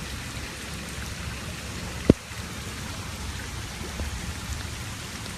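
Steady rain falling, with a single sharp click about two seconds in.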